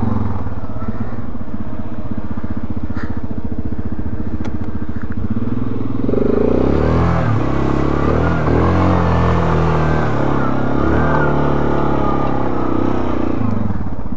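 ATV engine running at a low, even speed, then from about six seconds revving harder with the pitch rising and falling as the quad pushes through a wet, muddy rut, easing off again near the end.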